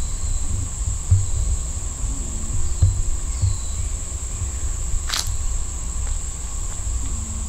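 Insects droning in a steady, high-pitched chorus, with a few short falling chirps over it. A low rumble with occasional thumps runs underneath, and a single sharp click comes about five seconds in.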